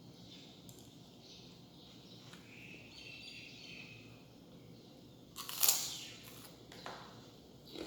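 Wild birds chirping faintly in the background. About five and a half seconds in, a loud, brief noise cuts across them, followed by a few small clicks.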